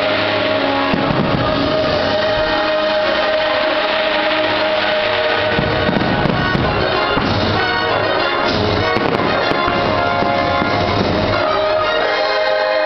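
Fireworks show with its music playing loud and steady, while fireworks shells burst overhead in a run of bangs and crackles that grows densest around the middle.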